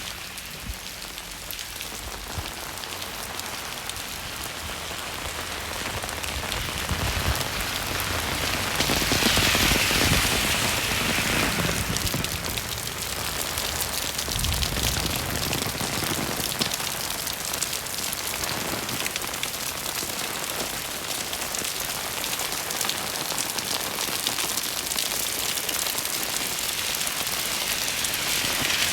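Rain falling on a wet city street: a steady hiss of drops, growing louder about a third of the way in and then holding.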